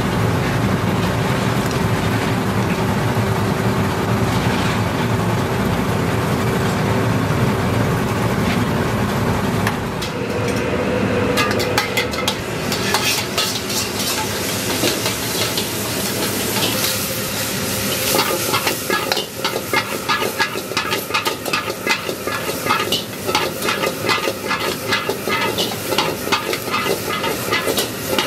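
A steady low kitchen rumble, then about ten seconds in a wok takes over: oil sizzling as chili oil and sliced onions stir-fry, with a metal wok ladle scraping and clanking against the pan in quick repeated strokes.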